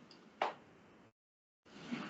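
Quiet room tone with a single short click a little under half a second in; about a second in, the sound cuts out completely for roughly half a second.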